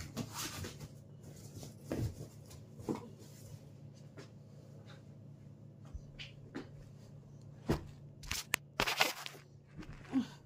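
Clothes rustling as they are picked up and handled, with a few sharp knocks, loudest about eight to nine seconds in, over a steady low hum.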